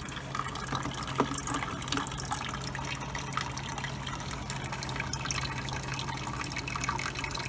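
Water trickling and splashing in an aquarium's hang-on-back filter, over a steady low hum.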